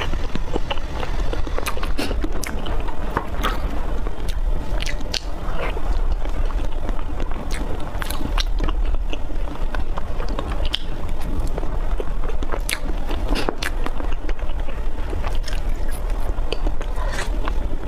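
Close-miked eating of soft chocolate-glazed mousse cake: wet chewing and mouth clicks, with a metal spoon scraping and tapping as it cuts the cake on the cardboard board. Many irregular sharp clicks ride over a steady low hum.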